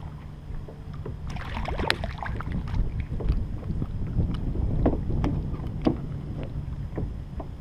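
Wind rumble on the microphone, with many scattered light knocks and clicks from handling a small redfish aboard a kayak.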